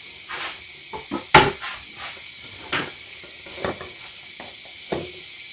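Kitchen utensil clatter: a steel knife set down on a wooden cutting board and a pot lid lifted off a pot, a string of separate sharp knocks and clinks, the loudest about a second and a half in.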